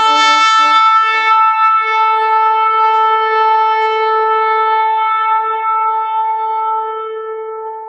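Shofar blown in one long blast that opens with a brief lower note, settles on a single held pitch, and fades away near the end.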